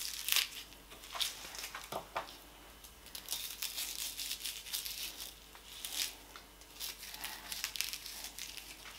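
Small kitchen knife cutting and scraping at a raw fish head, with soft tearing and crackling as parts are pulled out from the side of the head. Faint, irregular crackles and scrapes, a few a little louder.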